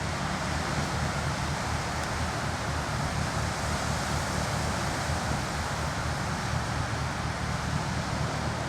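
Wind blowing across the microphone: a steady rushing noise with an unsteady low rumble.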